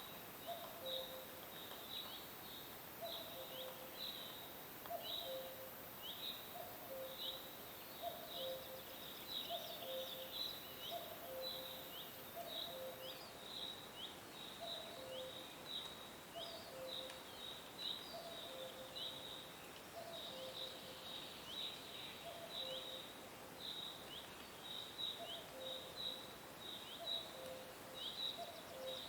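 Nature soundscape of animal calls: short high falling chirps repeat two or three times a second over a low two-note call that comes about once a second, all faint.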